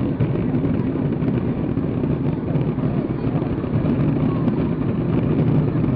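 Fireworks bursting in quick succession, merging into a continuous rumble with faint crackles through it.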